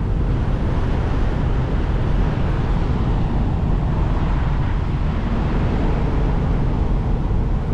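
Steady low rumble of a semi truck's diesel engine idling.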